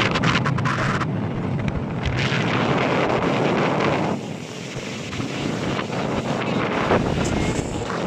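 Wind buffeting the microphone aboard a fast-moving motorboat, mixed with the rush of water spray along the hull. It eases somewhat about halfway through.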